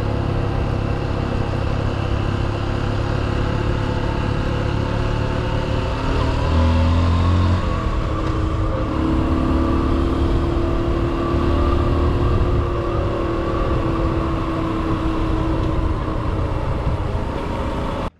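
Motorcycle engine running while under way, heard from the bike with wind and road rush. The engine note changes and gets louder about six seconds in, then holds steady, and the sound cuts off suddenly near the end.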